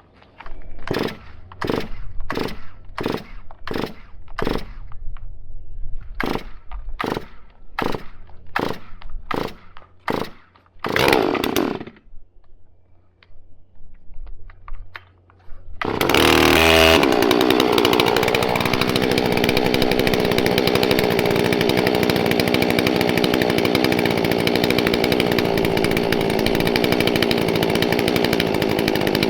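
A rapid run of sharp knocks, about two a second, with a brief break partway through. A little past halfway the Holzfforma G466, a two-stroke Stihl 046 clone chainsaw, starts abruptly, its revs rising briefly before it runs steadily.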